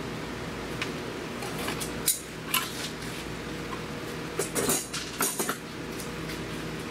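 Metal tools and parts clinking and clattering as they are handled in a car's engine bay: a few separate clicks, then short bursts of rattling about two-thirds of the way through, over a steady background hum.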